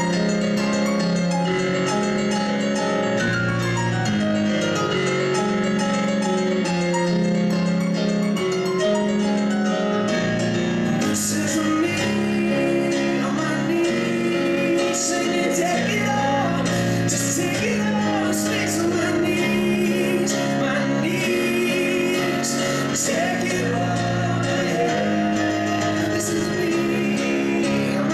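Live pop-rock band music: a Yamaha CP stage piano playing chords under a man's singing, with an electric guitar. The sound gets fuller and brighter about eleven seconds in.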